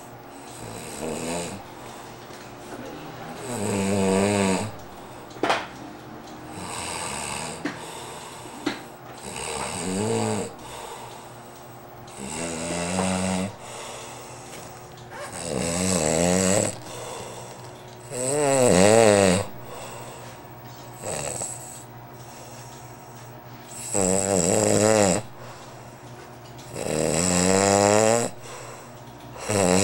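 A person snoring in deep sleep, one loud snore about every three seconds, each with a wavering, fluttering pitch.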